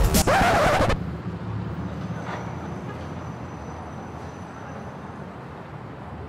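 Music cuts off about a second in, leaving a steady hiss of outdoor background noise, like distant road traffic.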